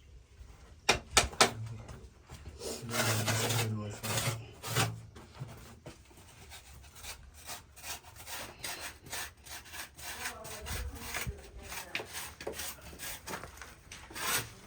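Repeated hand scraping and rubbing strokes, like a tool worked over a rough surface, with a voice talking briefly about three seconds in.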